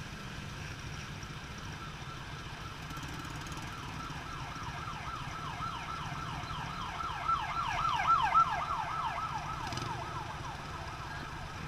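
Emergency vehicle siren in a fast yelp: rapid falling wails, about four a second, growing louder to a peak about eight seconds in and then fading away. A low rumble of idling traffic runs underneath.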